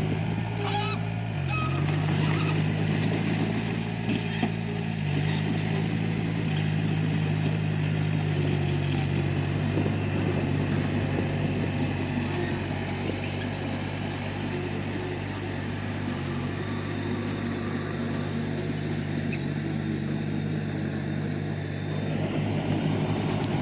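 Komatsu D31P crawler bulldozer's diesel engine running steadily while working, its pitch dipping briefly a few times as it takes load.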